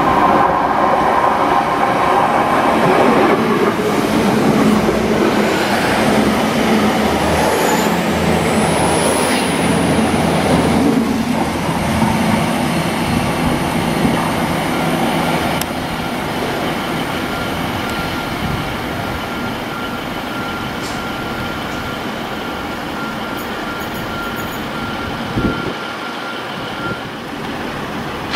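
TransPennine Express Class 802 bi-mode train running into the platform on its diesel engines, with high squeals from the wheels on the curve about eight seconds in. About halfway through there is a quieter, steady train rumble with a thin, steady whistle-like tone from a second TransPennine Nova unit.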